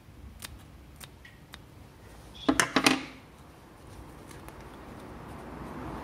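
Scissors cutting a slit into a sheet of filter material: a few light clicks of the blades, then a quick run of four or five louder snips about two and a half seconds in. A faint hiss slowly builds near the end.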